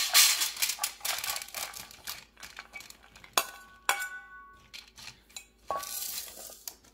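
Cashews poured from a stainless steel bowl clattering onto an Instant Pot Vortex Plus air fryer's perforated metal cooking tray, with a metal spoon scraping and knocking the bowl. A dense run of small clicks comes first, then two sharp clinks that ring briefly at about three and a half and four seconds in.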